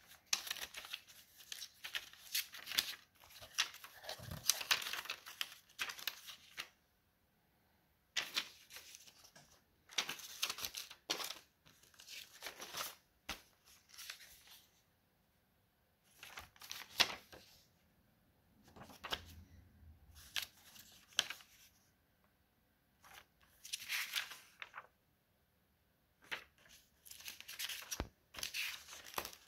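Pages of a paper notebook, some with glued-in printouts, being turned and handled, rustling in bursts of one to several seconds with short pauses between.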